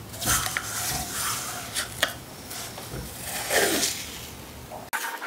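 Blue painter's tape being pulled off the roll in several rasping strips, about a second apart, and rubbed flat by hand onto an engine cylinder head.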